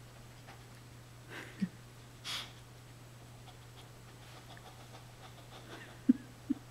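An English bulldog and a Boston Terrier puppy breathing and snuffling with their noses at a rubber ball toy: a breathy snort about two seconds in, and three short low sounds, two of them close together near the end.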